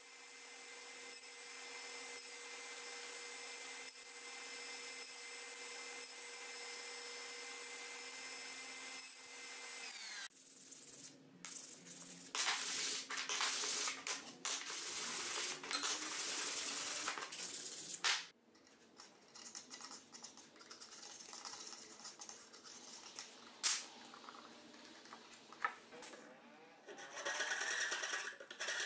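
Table saw running with a steady whine, spinning down about ten seconds in. Then a hand sanding block rubbing back and forth over ash strips in quick noisy strokes, a quieter stretch of scattered scrapes and taps, and near the end a Japanese pull saw cutting into a piece of ash in a vise.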